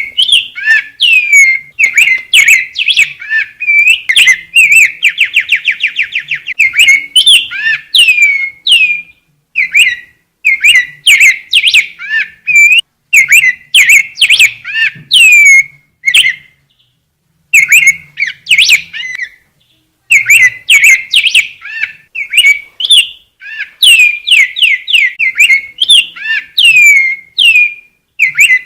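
A rey del bosque (grosbeak) singing loudly: phrases of quick downward-sweeping whistled notes, broken by a fast rattling trill about five seconds in and by a couple of short pauses.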